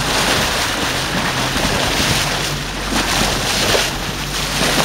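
Wind buffeting the microphone and water washing past the hull of a small boat moving slowly over choppy sea, with a steady low hum underneath.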